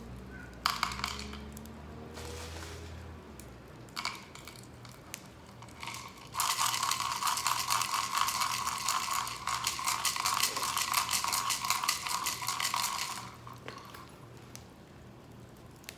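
Shii nuts rattling inside a handheld roasting pan shaken over a fire: a few short shakes, then about seven seconds of continuous rapid rattling from around six seconds in.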